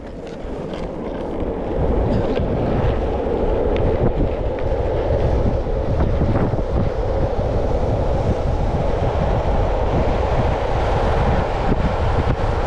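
Longboard wheels rolling fast on asphalt and wind rushing over the microphone during a downhill run, building over the first couple of seconds as speed picks up, then holding steady.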